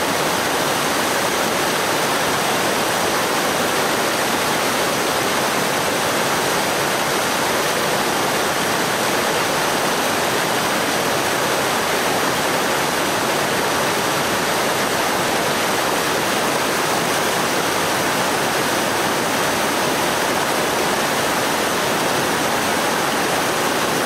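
River water rushing over a low line of rocks in small rapids, a steady, unbroken rush of flowing water.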